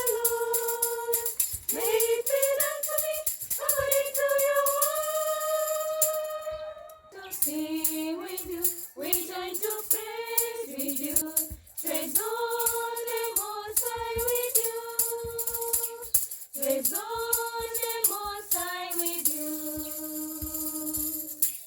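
Closing instrumental-and-vocal passage of a devotional hymn: held melodic notes in slow phrases over a steady jingling, tambourine-like beat. The music stops abruptly right at the end.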